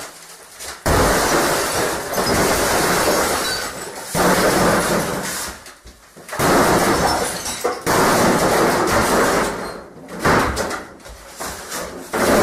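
A CRT computer monitor being smashed: a series of sudden crashes of breaking glass and plastic, about five in all, spaced a couple of seconds apart.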